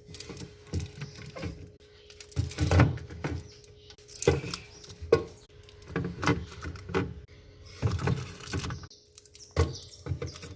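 Irregular knocks and clatter of containers and shelves being handled while a refrigerator is tidied, over a steady faint hum.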